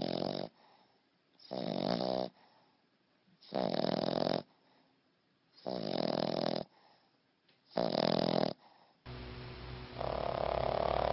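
A dog snoring loudly: five long snores about two seconds apart. About nine seconds in they give way to a steady low hum.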